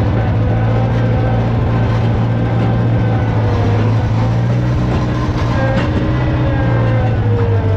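Gehl skid steer's engine running steadily, heard from the operator's seat, with a slight drop in pitch about seven seconds in.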